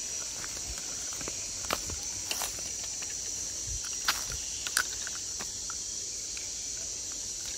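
A steady, high-pitched insect chorus, with a handful of sharp clicks and taps about two to five seconds in from handling a spinning fishing reel.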